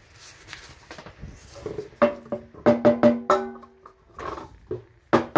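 Aluminium cake tin being tapped and knocked as it is turned to spread flour over its greased inside: a string of sharp metallic knocks, each ringing briefly, with a quick run about two seconds in and more near the end.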